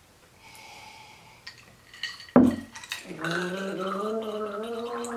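A woman gargling a mouthful of drink to ease a mouth burning from ghost-pepper and habanero popcorn. There is a sudden loud sound about two and a half seconds in, then a steady, slightly wavering gurgle from about three seconds in.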